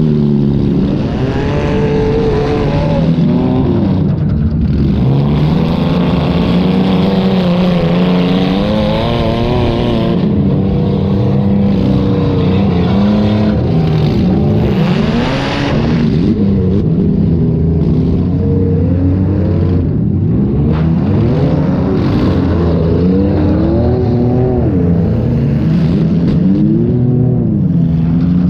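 Demolition derby car's engine heard from on board, revving up and down over and over as the car is driven hard, with a few sharp knocks along the way.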